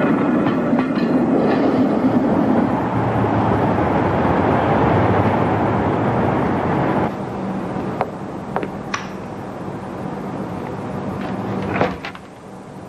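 Light rail tram passing close by: a loud, steady rush and rumble of wheels on track. It cuts off abruptly about seven seconds in, leaving a quieter hum with a few scattered clicks.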